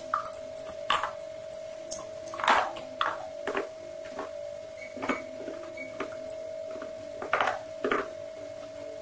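Close-miked chewing of crispy fried chicken: irregular crunches every second or so, loudest about two and a half and seven and a half seconds in, over a steady faint tone.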